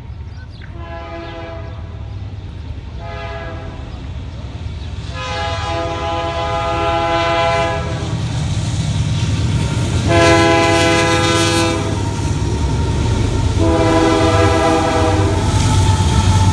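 Locomotive air horn, several tones sounding together as a chord, blown in a series of about five blasts; the middle one is the longest at about two and a half seconds. Under the horn a low train rumble grows steadily louder as the train approaches.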